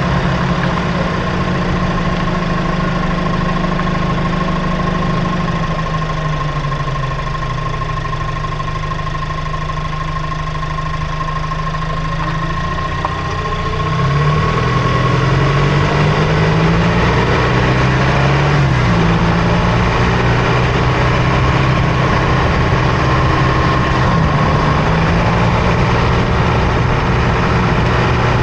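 2024 Toyota Tacoma's 2.4-litre turbocharged four-cylinder engine and running gear while driving, heard from under the front end, with a steady high whine over the engine. The engine drops in pitch and level a few seconds in, then picks up again about halfway through, its pitch rising and falling.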